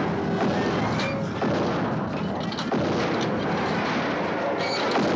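Corrugated sheet-metal walls rattling, buckling and tearing open in a loud, continuous rumbling crash.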